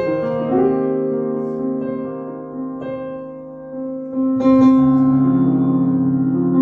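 Roland GP6 digital piano playing slow, held chords in a piano tone, with a new, louder chord about four and a half seconds in.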